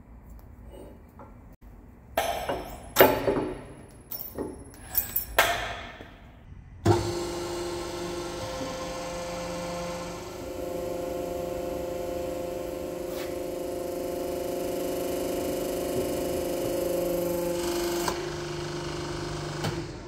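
Several sharp metal clanks as steel blocks and the heavy rod are set in place in the press. About seven seconds in, the MetalMaster HPM-150T hydraulic press's electric pump starts and runs steadily while its control-valve lever is worked, its tone shifting a couple of times before it stops near the end.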